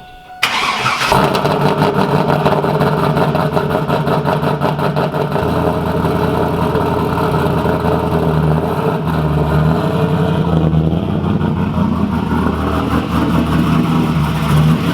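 2000 Pontiac Trans Am WS6's LS1 V8, fitted with a Brian Tooley Racing Stage 4 cam, long-tube headers and a Borla cat-back exhaust, starting about half a second in and then idling loudly.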